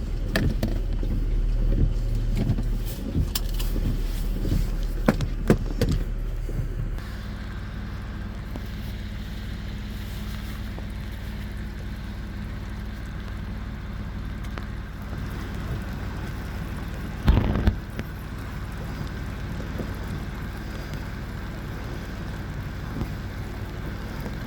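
Land Rover Discovery engine idling steadily, with knocks and clicks over the first several seconds as the door is worked; about seven seconds in the engine sound drops and goes on more quietly. A short thump stands out about seventeen seconds in.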